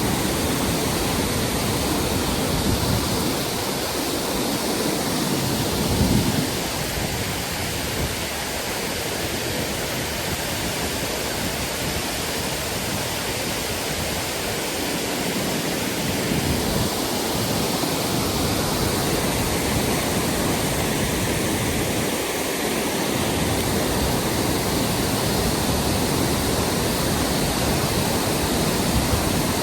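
Steady rush of a mountain stream's flowing water, with gusts of strong wind buffeting the microphone as low rumbles every few seconds.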